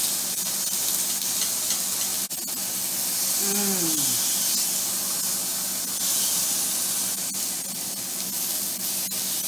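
Thin slices of carne asada sizzling steadily on an indoor tabletop grill as the meat is lifted and turned with metal tongs. A few light clicks of the tongs come through the sizzle.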